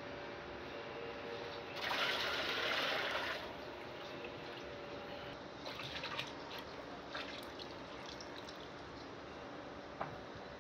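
Liquid clay slip pouring out of an upturned plaster teapot mold into a plastic bucket, a heavier gush about two seconds in and then a steadier stream: the excess slip being drained from the mold once the wall has cast. A single knock near the end.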